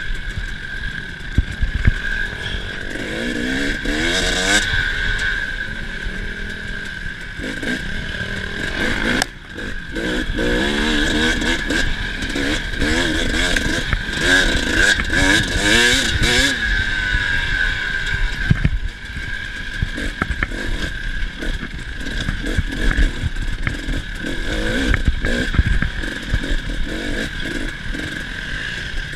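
KTM 300's two-stroke enduro engine under way, revving up and down again and again as the throttle is worked, with a brief drop when the throttle is shut about nine seconds in.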